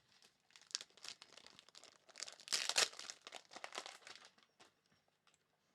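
Plastic crinkling and rustling as baseball trading cards are handled, irregular and loudest a little past halfway.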